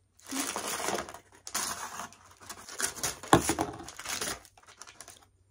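Paper takeaway food bag rustling and crinkling as it is handled and emptied, with a single louder knock, something set down on the table, a little past halfway.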